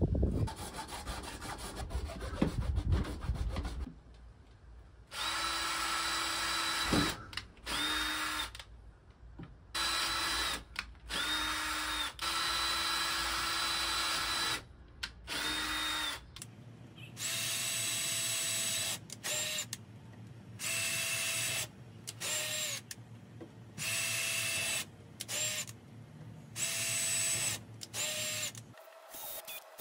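Ryobi cordless drill boring pilot holes into PVC pipe in about a dozen short trigger pulls, each a steady whine that sags as the trigger is released; the whine is higher-pitched in the later pulls. Rustling handling noise comes before the first pull.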